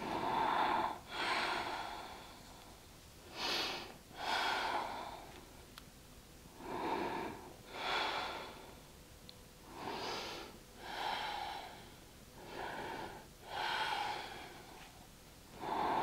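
A woman's slow, audible yoga breathing, about five full breaths in turn, each a short inhale followed by a longer exhale, roughly every three seconds.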